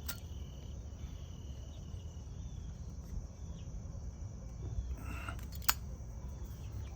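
Zippo lighter with a butane insert being handled: a brief scrape about five seconds in, then a single sharp metal click. Under it runs a steady low background hum, with faint chirps.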